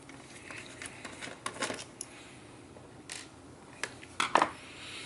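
Light clicks and taps of plastic laptop case parts being handled as a small plastic cover is lifted out of the underside of an HP 15 laptop, with the sharpest pair of clicks a little past four seconds in.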